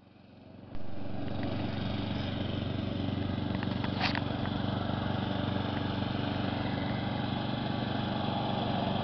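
Briggs & Stratton 650 Series single-cylinder engine of a self-propelled walk-behind lawn mower running steadily as the mower is pushed across the grass. The sound comes up to full level about a second in.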